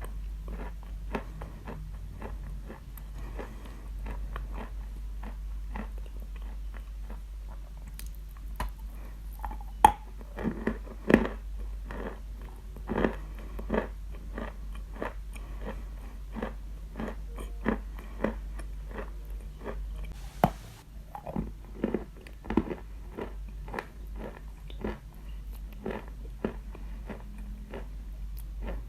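A person biting and chewing Khrapovsky edible chalk: dry crunches about twice a second, the loudest bites about a third of the way in, over a steady low hum.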